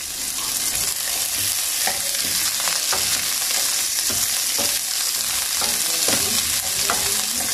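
Sliced onions, garlic and crushed ginger sizzling in hot oil in a frying pan, a steady hiss, while a wooden spatula stirs them, scraping the pan in a few short strokes.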